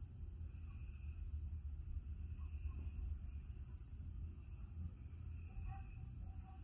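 Steady high-pitched chorus of insects such as crickets, with a steady low rumble underneath and a few faint chirps near the end.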